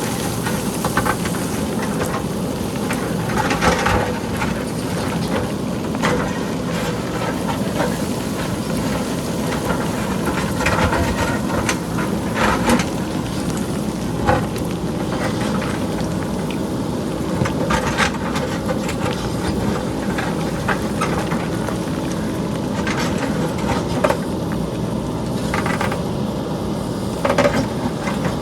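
JCB backhoe loader's diesel engine running steadily while boulders and pebbles clatter down the hillside, with irregular sharp knocks and clicks of rock striking rock.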